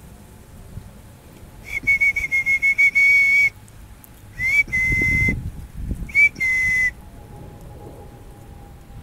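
A whistle blown in three blasts: a string of quick short toots running into a longer held note, then two shorter blasts that each slide up at the start. The whistling calls the dog back, and it comes running.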